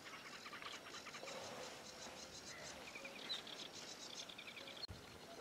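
Faint songbirds chirping and trilling, several birds overlapping, with short runs of quickly repeated notes. A single soft click comes near the end.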